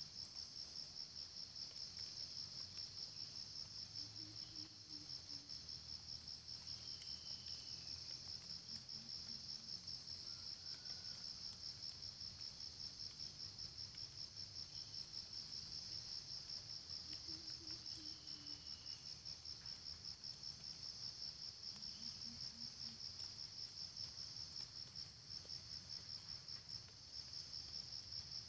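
A chorus of insects trilling without a break, high-pitched and fast-pulsing, with a few faint short calls now and then beneath it.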